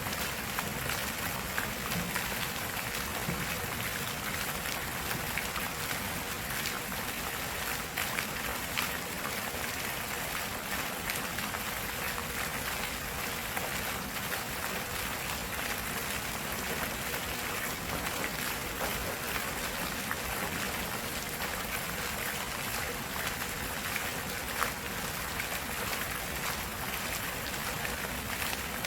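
Flowing stream water running steadily, an even rushing with small splashes.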